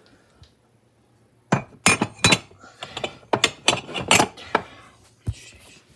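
Coffee mugs clinking and knocking against each other and the shelf as they are put away in a kitchen cabinet. A quick run of sharp clinks starts about a second and a half in and lasts a few seconds.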